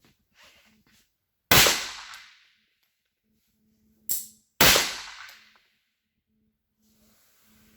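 Two shots from a Walther P5 pistol fitted with a .22 LR conversion, about three seconds apart, each trailing off in echo over about a second; a shorter, quieter crack comes just before the second shot. The conversion is cycling and firing without trouble.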